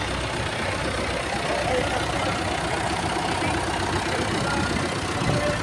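Engines of vintage Massey Ferguson tractors running steadily as the tractors drive slowly past one after another, the nearest one close by.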